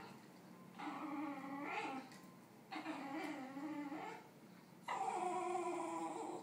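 A basenji whining over a snack in three long, wavering calls about a second and a half each, the last one the loudest.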